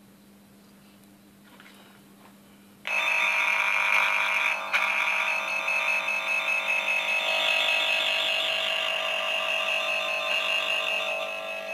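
Cable tracer's receiver probe sounding its electronic tone as it picks up the signal generator's signal on the wires of a multicore cable. A loud, warbling buzz starts suddenly about three seconds in and keeps going, with a brief break near five seconds.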